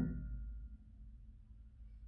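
Grand piano chord ringing out and fading away over the first half second or so, leaving a near-silent pause in the playing.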